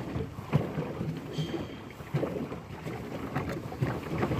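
Water splashing around a plastic pedal boat moving across a lake, with wind buffeting the phone's microphone and irregular soft knocks.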